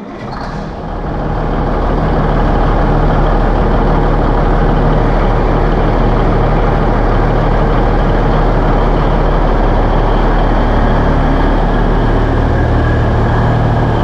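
Semi truck's diesel engine idling, a loud steady deep engine note that cuts in suddenly and settles within the first couple of seconds.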